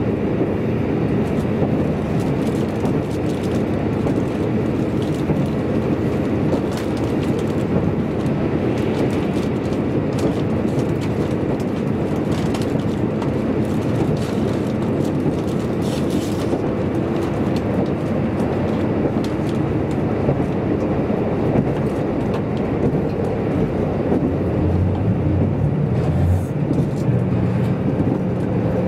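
Steady running noise heard inside a JNR-built diesel railcar at speed: the diesel engine's drone mixed with wheels running on the rails, with faint scattered ticks from the track.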